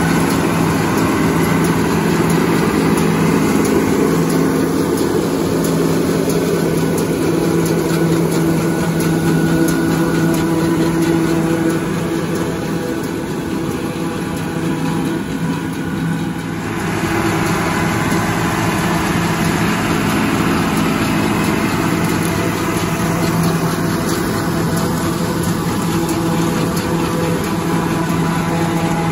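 A White 140 tractor running steadily under load, driving a New Holland 790 forage chopper that picks up a windrow and blows the chopped crop into a forage wagon. The sound dips slightly and then shifts about 17 seconds in.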